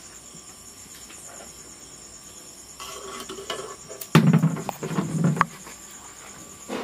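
A metal spatula stirring and scraping food in a steel kadai, with a sharp clank about four seconds in and another a little after five. Crickets chirp steadily throughout.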